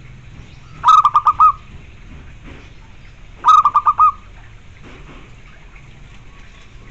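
Zebra dove (perkutut) cooing: two short phrases of about five quick staccato notes each, the first about a second in and the second about three and a half seconds in.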